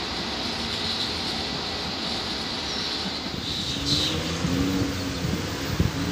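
Electric commuter train running away from the platform, a steady rumble and hiss. From about four seconds in the sound grows louder and more uneven, with a low hum coming in.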